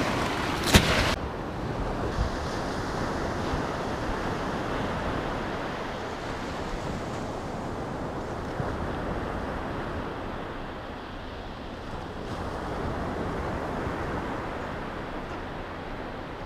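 Waves breaking and washing up a sandy beach, with wind on the microphone. After a sharp click about a second in, it turns into a duller, steadier wash of surf that swells and fades slowly.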